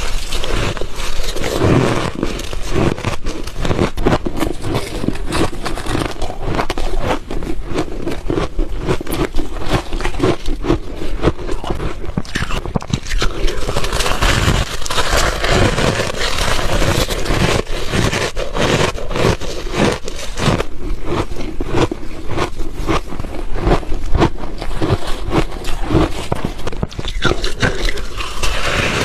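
Ice being bitten and chewed close to the microphone: a dense, continuous run of sharp cracking and crunching.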